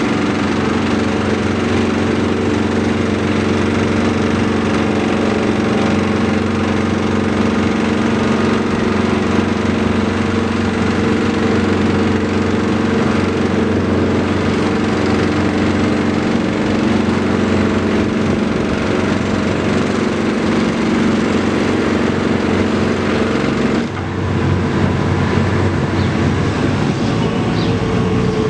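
Diesel engine of road-works machinery running steadily at a constant speed. Near the end its steady note drops out, leaving a rougher mechanical noise.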